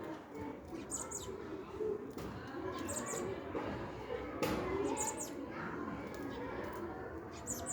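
Small birds' short, high chirps in little clusters about every two seconds, over a steady low background murmur.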